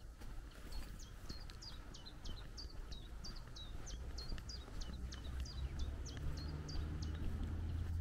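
A small songbird calling over and over, a quick high note sliding downward about three times a second. A low hum rises underneath in the second half.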